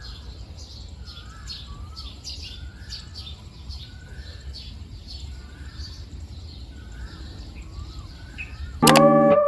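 Birds calling: one repeats a short call with a falling glide about once a second, about eight times, over higher chirping and a low background rumble. Guitar music comes in loudly near the end.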